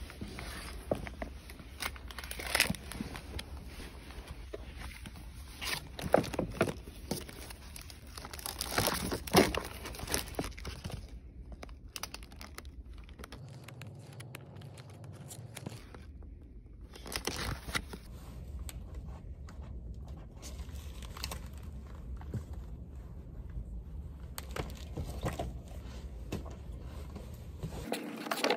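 Papers and spiral notebooks rustling and crinkling as they are handled and packed into a cardboard box, with irregular knocks and scrapes.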